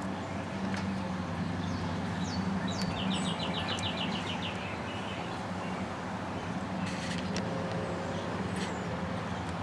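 Steady low background hum with a few faint metal clicks from a wrench on the battery terminal bolt, and a bird's rapid trill lasting about a second around three seconds in.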